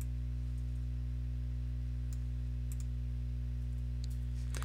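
Steady low electrical hum, with a few faint computer mouse clicks scattered through it.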